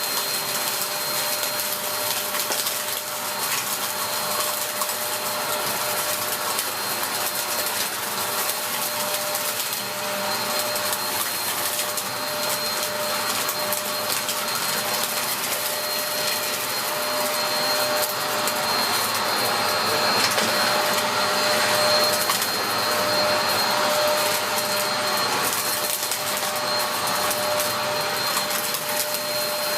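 Dyson DC03 upright vacuum cleaner running steadily, its motor giving a constant whine as it is worked over a floor mess of trodden-in flour and debris. It grows a little louder about two thirds of the way through.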